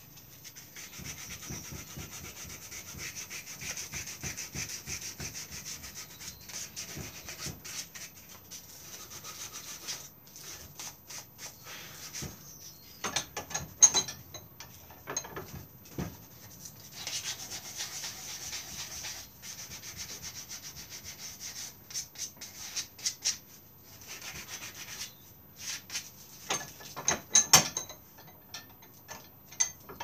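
Hand-sanding a carved wooden stick handle of soft London plane: runs of quick rasping rub strokes, with pauses and a few sharp knocks of the wood or tools in between.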